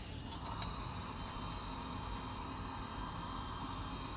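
Steady faint hiss over a low hum, with no distinct events.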